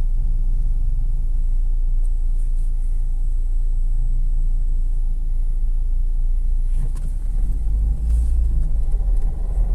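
Peugeot 207 driving, heard from inside the cabin: a steady low rumble of road and engine noise. It gets louder about seven seconds in, with a couple of faint knocks.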